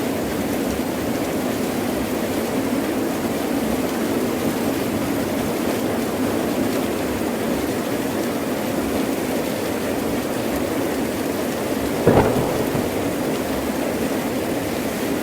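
Heavy rain falling in a steady hiss, with one short, sharp crack of thunder about twelve seconds in.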